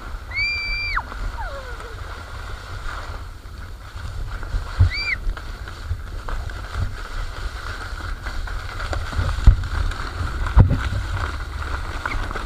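Plastic sledge sliding down a snowy slope: a steady low rumble from the ride, with a few knocks as it bumps over the ground. A child gives a high squeal near the start and a shorter one about five seconds in.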